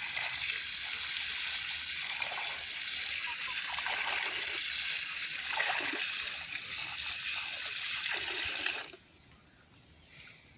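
Water splashing and sloshing as sardines are washed by hand in water; it stops abruptly about nine seconds in.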